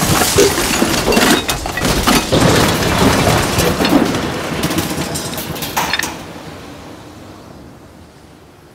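Crashing, cracking and clattering of a contraption of scrap and junk breaking apart, many sharp impacts over a broad rush of noise, fading away after about six seconds.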